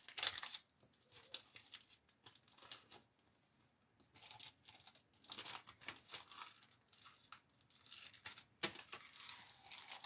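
Thin clear plastic packaging film crinkling and crackling in scattered bursts as it is handled, with a short lull about three seconds in.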